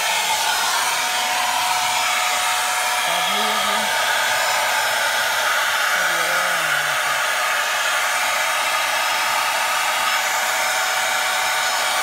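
Kitfort handheld vacuum cleaner running steadily with a crevice nozzle on a car's floor mat: a constant motor whine and rush of air.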